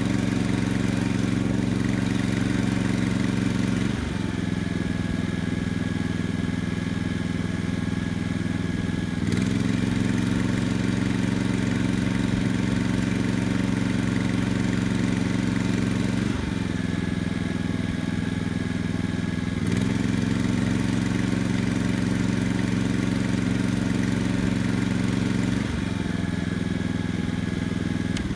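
Honda EB2800i inverter generator running in eco mode as an 1100-watt waffle iron is unplugged and plugged back in: the engine steps down to a lower, quieter speed three times when the load comes off and back up twice when it goes on again.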